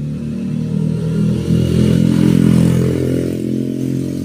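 A motor vehicle's engine running close by: a steady low drone that swells louder about a second and a half in, then eases slightly.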